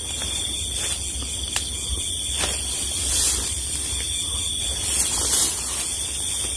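Steady high-pitched chirring of night insects, with a few faint clicks and short rustles over a low rumble on the microphone.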